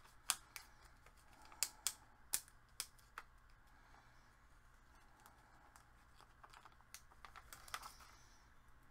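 Light, sharp clicks and taps of small craft pieces being handled on the work surface. About seven come in the first three seconds, and a few more arrive near the end with a short rustle.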